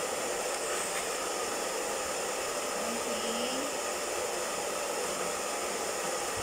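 Hair dryer running steadily at a constant blow.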